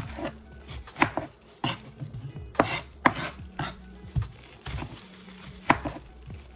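Kitchen knife slicing through a head of cabbage, the blade knocking sharply on the counter surface about eight times at an uneven pace, roughly once a second, as the cabbage is cut into small pieces.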